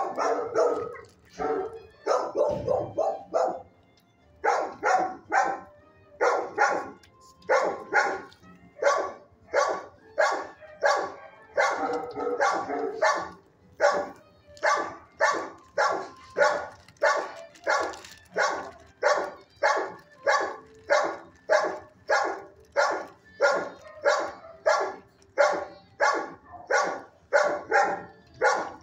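Shelter dogs in neighbouring kennels barking in a steady run of repeated barks, about two a second, with a brief break about four seconds in.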